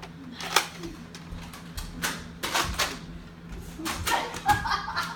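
Scattered sharp clacks and knocks from toy foam-dart blasters during a Nerf battle, with the loudest near the start and another cluster about two and a half seconds in.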